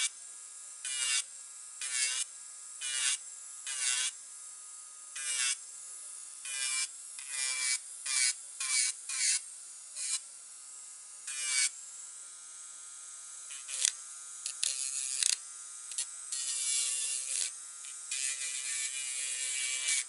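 Electric nail drill (e-file) with a barrel bit running with a steady whine and grinding on artificial nails. Short, louder grinding strokes come about once a second as the bit touches the nail, then longer unbroken passes near the end.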